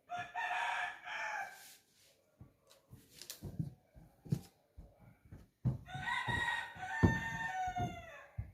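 A rooster crowing twice: a short crow at the start and a longer one from about six seconds in that falls in pitch at its end, with a few short knocks in between.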